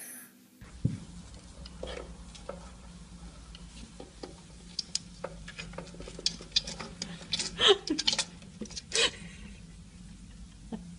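Irregular light clicks, taps and scrapes, a few louder ones near the middle and end, over a steady low hum.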